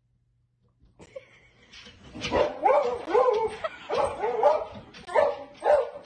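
Dog whining and yipping in a run of short cries that rise and fall in pitch, about two a second, starting about a second in.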